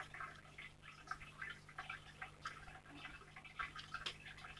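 Slime being squeezed and stretched by hand, giving a run of faint, irregular wet clicks and pops.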